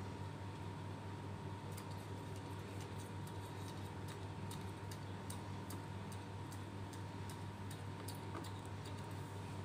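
Table knife run around the inside edge of a steel pan to loosen a steamed bread pudding: faint, irregular light ticks and scrapes of the blade against the steel, starting about two seconds in, over a steady low hum.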